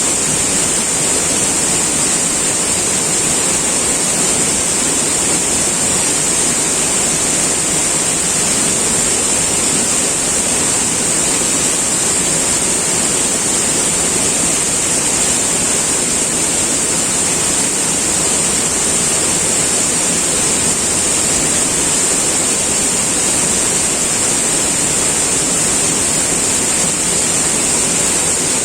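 River water flowing: a steady, unbroken rush with a strong hiss high up.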